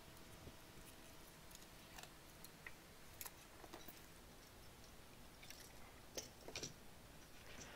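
Near silence, with faint scattered clicks and light taps as a GM instrument cluster's circuit board and its wiring are handled.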